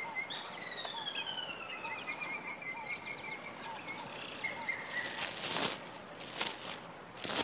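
Woodland birds calling: a long run of chirps sliding down in pitch, over repeated short chirps. Three brief rustles come in the second half.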